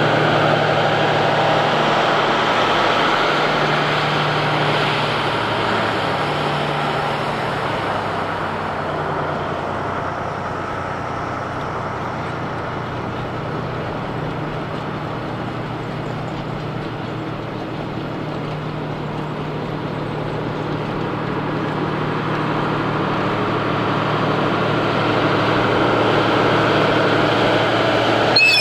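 JR Freight DF200 'Red Bear' diesel locomotive engine running steadily with a deep, even drone; its pitch shifts slightly about five seconds in. The sound eases in the middle and swells again toward the end, with a short click at the very end.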